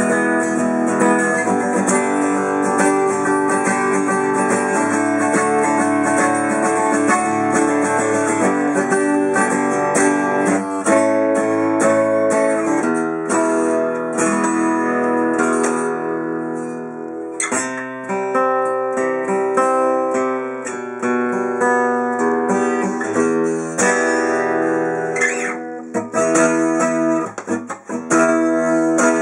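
Sigma DR-7 acoustic dreadnought guitar played, chords strummed and picked and left ringing. Its high E string sits badly in the nut, which the player says makes it vibrate instead of resonate.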